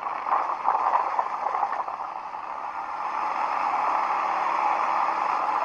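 ATV engine running under throttle as it is ridden; the sound dips briefly about two seconds in, then holds steady.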